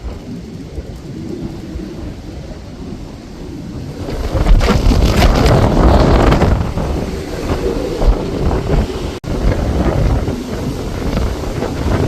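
Strong gusty wind buffeting the microphone, a deep rumbling rush that is lighter for the first few seconds and then gusts louder from about four seconds in. The sound cuts out for an instant about nine seconds in.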